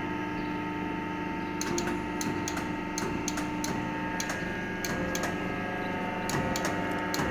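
Hydraulic hose crimping machine running under foot-pedal control, crimping a fitting onto a hose: a steady machine hum with irregular sharp clicks from about a second and a half in.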